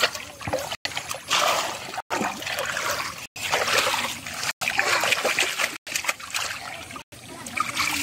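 Shallow, muddy water splashing and sloshing in irregular bursts as hands and legs churn through it while groping for fish. The sound drops out briefly about every second.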